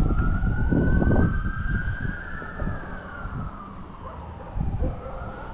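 Emergency vehicle siren wailing, its pitch sweeping slowly up and down, over a low rumble on the microphone.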